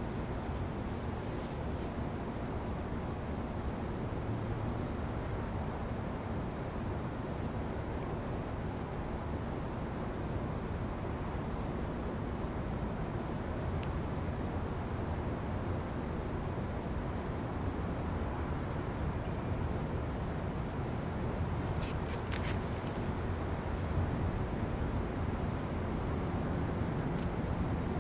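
Insects trilling: one steady, high-pitched chirring, with an even low rumbling noise beneath it and a few faint clicks about three-quarters of the way through.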